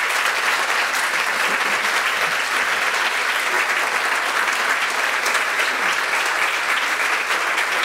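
Audience applauding steadily, a dense patter of many hands clapping at the close of a speech.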